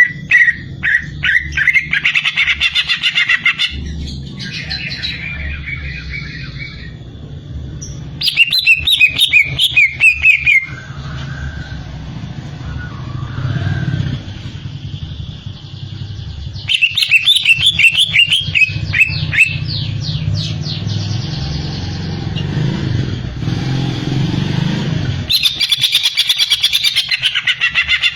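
Cucak ijo (green leafbird) singing in four bursts of rapid, high chattering notes, each a few seconds long, with a steady low hum underneath between the bursts.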